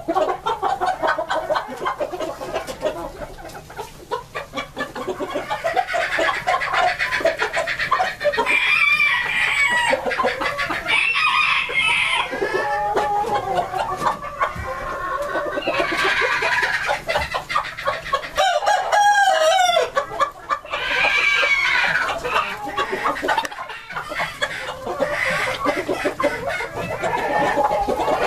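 Flock of Gray Japanese Bantam chickens clucking throughout, with roosters crowing several times over the top.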